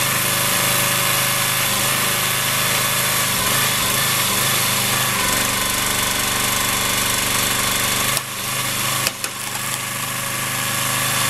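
Engine-driven hydraulic log splitter running steadily. About eight seconds in the engine note drops, and a sharp crack follows about a second later as the log splits.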